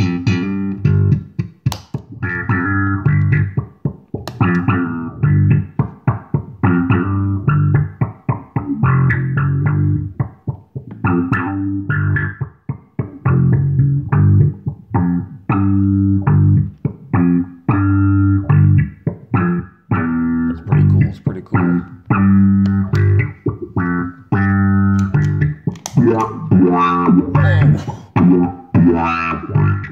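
Electric bass line played through several effects pedals combined, coming out as short, choppy rhythmic notes with strong low end.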